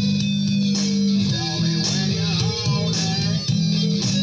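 Rock music: an electric guitar plays a lead line with bending notes over a steady bass and drums.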